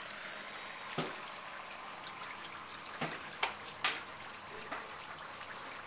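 Water trickling and dripping steadily, with a few sharp clicks or knocks about a second in and again around three to four seconds in.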